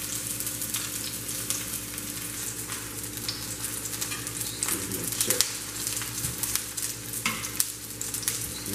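Halved onions searing face down in hot olive oil in a pan, sizzling steadily with frequent small pops and crackles as the cut faces char.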